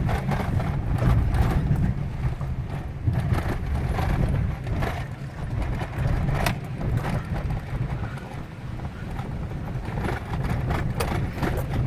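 Pickup truck driving on a bumpy dirt road, heard from inside the cab: a steady low engine and road rumble with frequent rattles and knocks.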